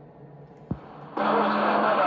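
A click about two-thirds of a second in, then the Stryker SR-955HPC CB radio's speaker opens with loud, steady static carrying a low hum and faint warbling voices: the radio receiving on channel 11 after the transmitter is unkeyed.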